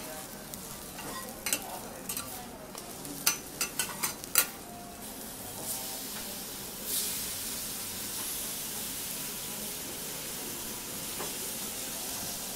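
Okonomiyaki and pork belly slices sizzling on a hot teppan griddle, with a few sharp metal clinks in the first few seconds. About seven seconds in the sizzling grows louder and then holds steady.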